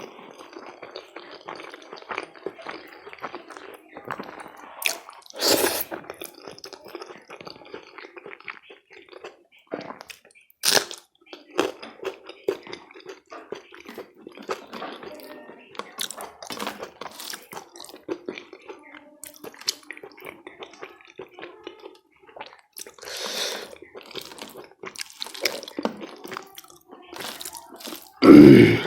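Close-miked eating of rice and aloo-baingan curry: wet chewing, squishing and lip smacks in an irregular run of short clicks, with a few sharper smacks. Near the end comes a single loud, dull bump, the loudest sound.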